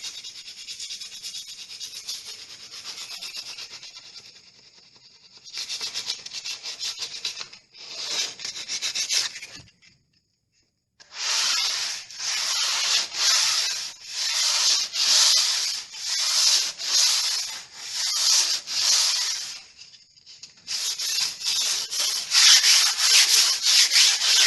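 Hand sanding with 180-grit sandpaper: a light rub-down of a primed surface, done gently so as not to cut back through the primer. A dry, scratchy rasp in back-and-forth strokes, about one a second in the middle with short pauses between runs, quicker towards the end, then it stops abruptly.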